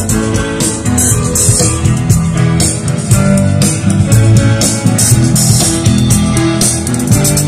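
Live rock band playing amplified music: electric guitars over a steady drum beat.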